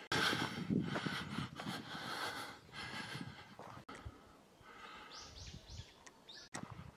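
Outdoor park ambience: a louder noisy stretch over the first few seconds, then short high bird chirps around five seconds in.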